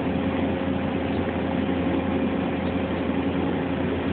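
Steady low hum of running machinery, with a few steady tones and no change in level.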